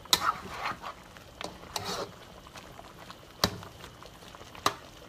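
Metal spatula scraping and clinking against a wok as braised pork hock and vegetables in thick sauce are stirred, with two sharp knocks about three and a half and four and a half seconds in.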